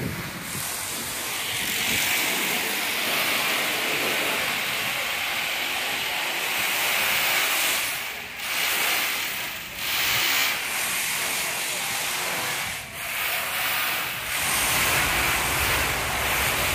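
Steady hiss of water splashing from a swimming-pool fountain, starting about a second and a half in and dipping briefly a few times.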